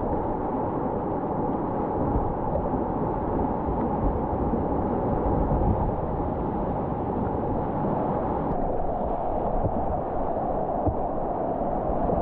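Steady rushing of river rapids, heard through a GoPro's microphone.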